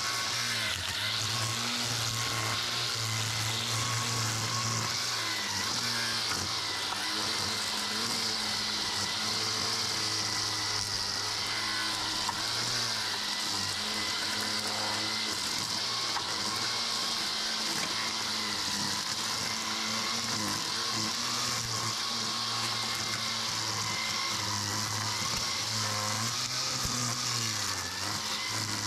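Toro 60-volt battery string trimmer running steadily, its spinning line cutting grass and weeds between patio pavers, the motor's pitch wavering as the line bites.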